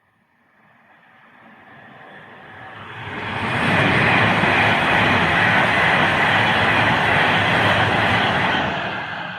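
A train approaching and passing by: the rumble and wheel noise build up over the first few seconds, then hold loud and steady.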